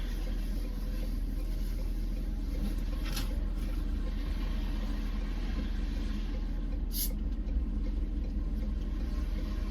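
Ford pickup truck being driven: a steady low engine and road rumble heard from inside the cab, with two brief faint ticks about three and seven seconds in.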